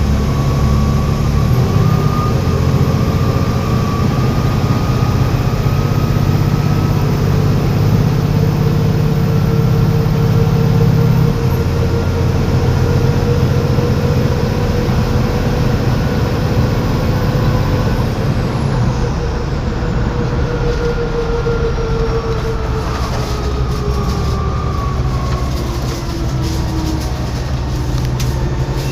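Volvo B7TL bus's turbocharged diesel engine running under way, with a high turbo whistle over the engine note. The engine note changes about a third of the way in, and near two-thirds through the whistle falls away in pitch as the engine comes off load.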